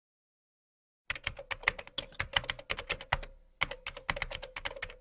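Computer keyboard typing: rapid, irregular key clicks that start about a second in, with a brief pause a little past the three-second mark, over a faint steady hum.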